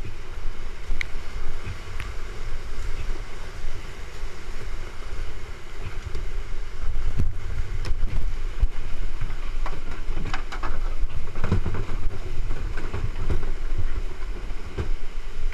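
Whitewater rapids rushing close to the microphone, with a heavy low rumble of water and wind buffeting on the mic. Scattered sharp knocks of kayak hulls and paddles come through, most often in the middle and later part.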